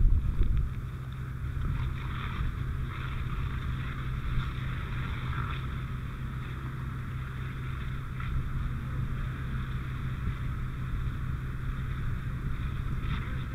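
Fire hose fog streams spraying water at a burning propane leak: a steady rushing hiss over a constant low rumble, a little louder right at the start.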